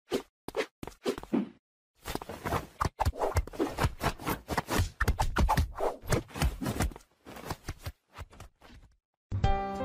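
Irregular knocking, clacking and scraping from a wooden whack-a-mole cat toy as a kitten paws at its pop-up mouse pegs. The sound comes in quick clusters of short hits, with a brief pause about two seconds in.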